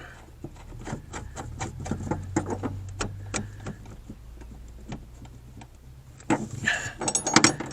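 Irregular metallic clicks and clinks of hand tools and parts being worked on metal, several a second. After a quieter spell there is a louder burst of clattering near the end.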